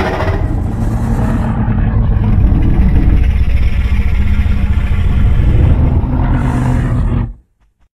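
Deep, rumbling giant-monster growl sound effect, loud and steady, that cuts off suddenly a little after seven seconds.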